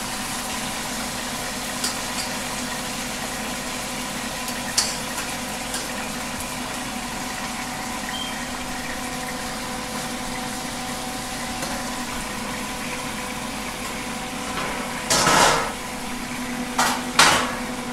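Beef steaks frying in hot oil in a pan half-covered by a metal sheet pan, with steady sizzling and spattering over a faint steady hum. There are a few light clicks, and a louder clatter of the metal tray against the pan near the end.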